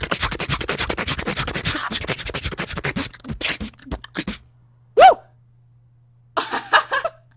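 Fast beatboxing: a dense run of mouth clicks and percussive vocal sounds that stops about four seconds in. A single short, loud pitched note follows, then a brief burst of vocal sounds near the end.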